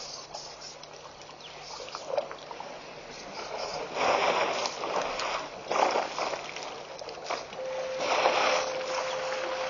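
Outdoor waterhole ambience broken by three short bursts of rushing noise. A steady whine starts near the end as the remote wildlife webcam's pan-and-tilt motor moves the view.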